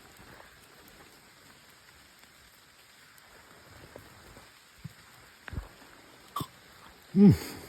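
Light rain falling, a faint steady patter with scattered drop ticks. Near the end comes a short, loud grunt-like vocal sound whose pitch bends.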